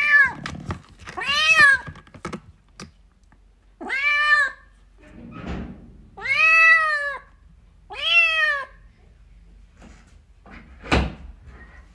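Small white kitten meowing five times, high-pitched calls about two seconds apart, calling for its mother. A single thump near the end.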